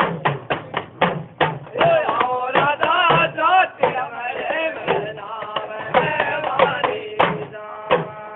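A man singing a devotional folk song for a Goga Ji jagran, his voice wavering on long held notes, over a drum beating steadily at about four strokes a second.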